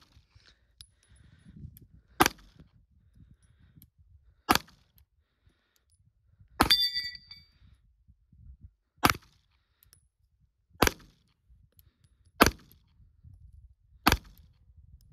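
Springfield Hellcat RDP 9mm micro-compact pistol with a compensator, fired in seven single shots about two seconds apart. After the shot near the middle, a steel target rings briefly where the bullet strikes it.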